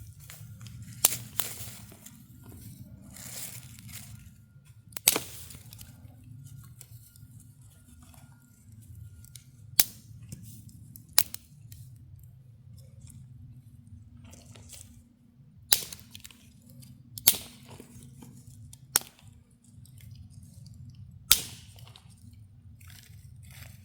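Dry sticks snapped by hand for kindling: about eight sharp cracks a couple of seconds apart, over a low steady rumble.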